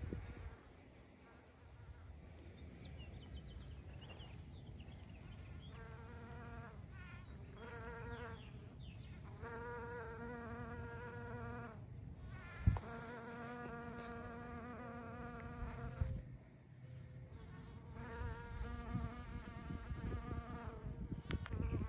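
A bumblebee buzzing as it flies among rose blossoms. Its hum swells and fades several times as it moves near and away, wavering a little in pitch. A single sharp knock comes about halfway through.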